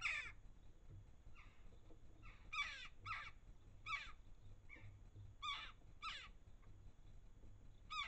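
Jackdaws giving short, harsh calls, each dropping in pitch, about eight in quick succession, with the loudest at the very start and about two and a half seconds in.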